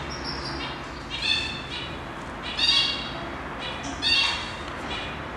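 Short, high-pitched chirping animal calls repeated over and over, with three louder ones about a second and a half apart.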